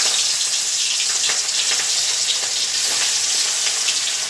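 Pieces of katla fish frying in hot oil in a kadai: a loud, steady sizzle with many small crackles and spits, just after the fish went into the oil.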